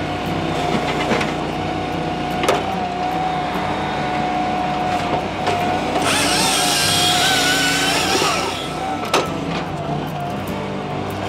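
Brute Force 14-24 firewood processor running, its engine and hydraulics giving a steady wavering whine with a couple of sharp knocks. About six seconds in, a loud hissing squeal with a wavering pitch rises for about two seconds, then drops away.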